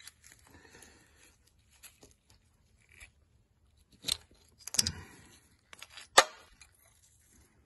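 A metal tool scraping inside a core plug hole of a Rootes 1725 cast-iron engine block, digging packed rust sludge out of the clogged water jacket. Faint scratching, with a few sharp metallic clicks about four to six seconds in, the loudest near six seconds.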